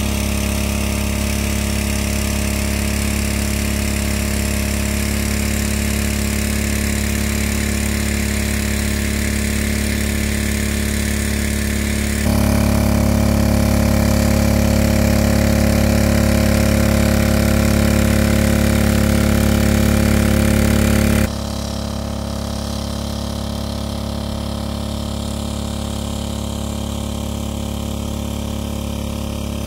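Small engine-driven water pump running steadily, pumping water out of a pond through its suction hose. It is louder for a stretch starting about twelve seconds in, then drops back to a lower level about nine seconds later.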